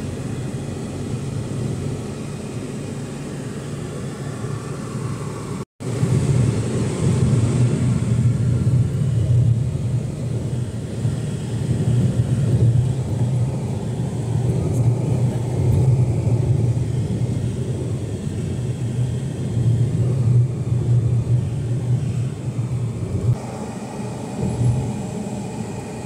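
Road and engine noise heard from inside a moving car: a steady low rumble that drops out for an instant about six seconds in and comes back louder.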